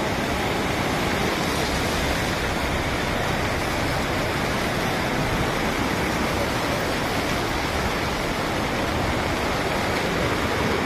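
Steady rushing of a swollen, fast-flowing flooded river.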